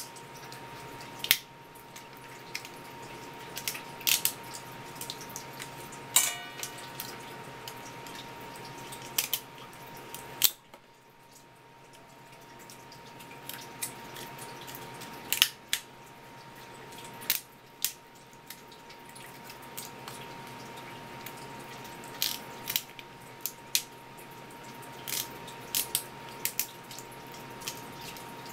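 Kitchen scissors snipping through swimming crab shell: irregular sharp clicks and crunches, over a steady stream of tap water splashing on a wooden cutting board. The water noise drops away briefly about ten seconds in.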